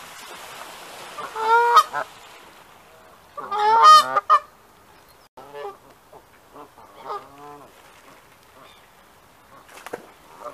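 Geese honking: a loud burst of honks about a second and a half in, a louder run of rapid honks around four seconds in, then fainter honks.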